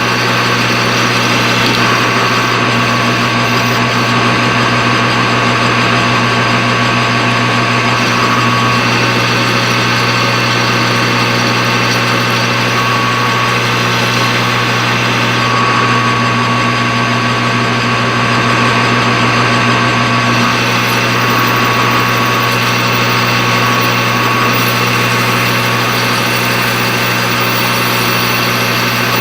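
Metal lathe running steadily under power while a boring bar cuts inside the workpiece: a continuous machine hum with a faint high whine that comes and goes.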